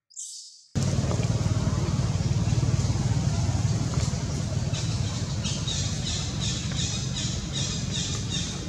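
A short high squeal, then from about a second in a steady low engine rumble. From about halfway, a rapid run of high squeaks, about three a second, sounds over it: a baby macaque crying in distress.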